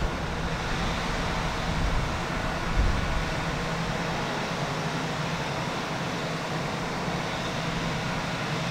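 Pilatus PC-9's Pratt & Whitney Canada PT6A-62 turboprop running steadily at low ground power with its propeller turning, an even hum with a hiss over it.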